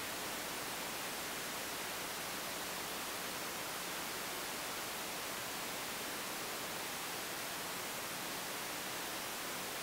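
Steady, even hiss of recording noise, unchanging throughout, with no other sound over it.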